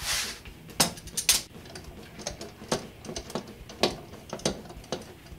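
Metal windshield mounting hardware clinking and clicking in irregular taps as bolts, nuts and chrome brackets are handled and fitted to the windshield, with a brief rustle at the start.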